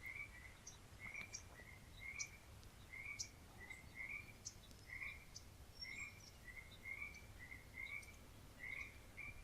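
Faint chorus of frogs croaking, short calls repeating about twice a second, with a few faint high chirps.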